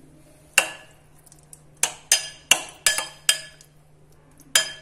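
A spoon clinks against the side of a glass mixing bowl while stirring a thick chicken marinade: about eight sharp clinks, each ringing briefly, most of them bunched in the middle.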